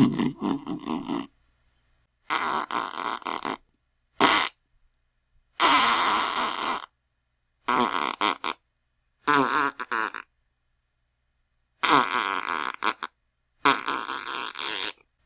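A series of eight different fart sounds, each about a second long except one brief one, with short silences between them. Each is a sputtering, flappy blast.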